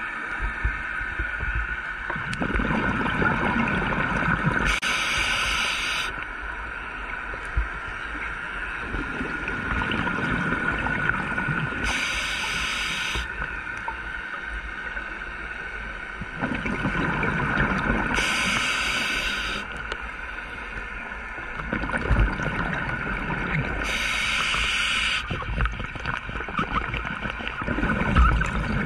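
A scuba diver breathing through a regulator underwater. Each inhale is a hiss from the demand valve, and each exhale is a rumble of bubbles, in a slow, regular cycle of about one breath every six seconds.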